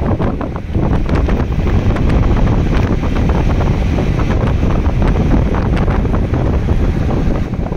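Wind buffeting the microphone from the open window of a moving car: a loud, rumbling rush with many small crackles, road and car noise underneath.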